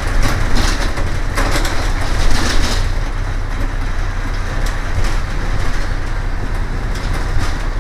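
1999 Amtran school bus driving along: a steady low rumble of engine and road noise, with short bouts of rattling and knocking from the body in the first few seconds.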